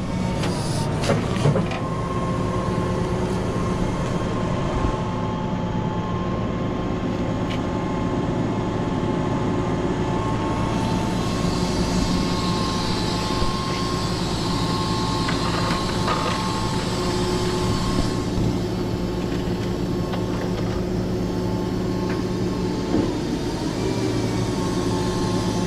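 Heavy rollback tow truck's engine running at a steady speed, a constant low hum with steady overtones. There are a few metallic clicks and clanks about a second in.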